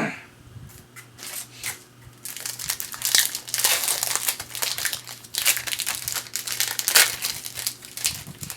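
Foil wrapper of a Topps baseball card pack crinkling and crackling as it is torn open and handled, a dense run of crinkling from about two seconds in until near the end.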